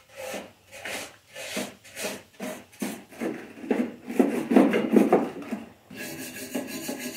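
Wire brush scrubbing caked grass and dirt out from under a Honda push mower's deck in quick back-and-forth strokes, about two to three a second, loudest around four to five seconds in. Near the end the strokes give way to a steadier scraping.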